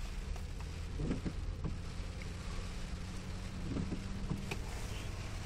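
A car driving slowly, a steady low engine hum with road noise, heard from inside the vehicle.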